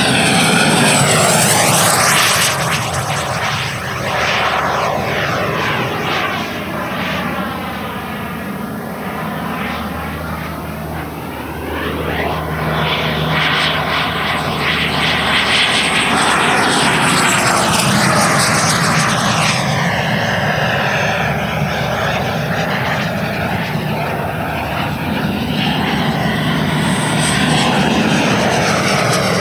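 Black Horse Viper XL RC jet's 100 mm WeMoTec Midi EVO electric ducted fan at high power during fast passes. The whine and rush of air swell as the jet comes close and ease as it flies away, loudest near the start, a little past the middle, and near the end.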